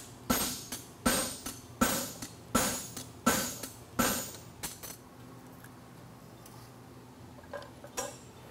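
Hand hammer striking a hot steel horseshoe bar on an anvil, about six ringing blows in a steady rhythm of roughly one every 0.7 s, flattening the shoe's quarter for the nail holes. The blows stop about four and a half seconds in, followed by two light taps near the end.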